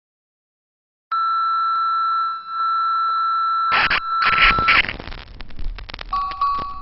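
A steady electronic beep tone holds for about three and a half seconds, then gives way to loud bursts of static-like noise with crackles that thin out; near the end, single bell-like notes of music begin.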